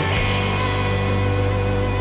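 Background rock music with guitar, over a steady low hum.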